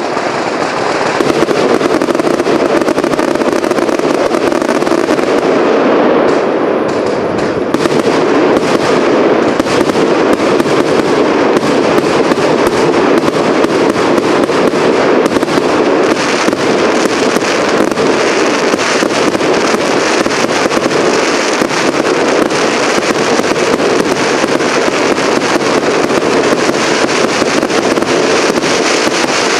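Cake firework firing continuously: shots and bursting shells in a dense run of bangs and crackles over a steady rushing noise. The shots come thicker from about eight seconds in.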